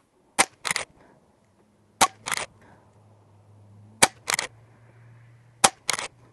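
Umarex Zelos .22 regulated PCP air rifle firing four shots, one every 1.6 to 2 seconds. Each sharp crack is followed about a third of a second later by a second, fainter crack.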